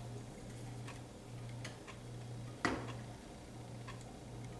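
Silicone spatula stirring thick peanut butter and sugar syrup in a stainless steel saucepan, giving light ticks about once a second as it meets the pot, with one louder knock a little past the middle. A low steady hum runs underneath.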